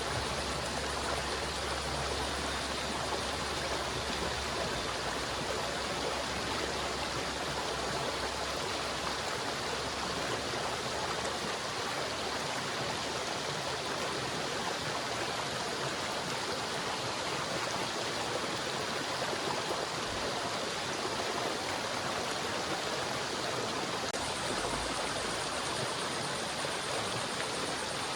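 River water flowing over rocks: a steady, continuous rush of running water.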